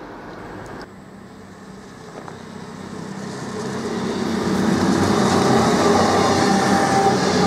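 Virgin Trains Voyager diesel multiple unit approaching and passing, its engine drone and wheel rumble growing louder over the first few seconds, then holding steady as the cars go by.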